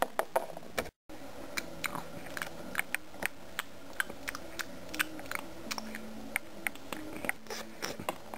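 Light, irregular clicks and taps, two or three a second: a plastic Littlest Pet Shop figure tapped against plastic toy food to act out eating.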